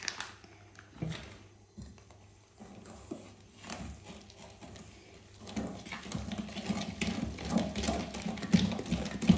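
Thick mandazi batter of flour, egg and milk being mixed by hand in a bowl: a few scattered knocks and scrapes, then from about five and a half seconds in, quick, steady beating strokes.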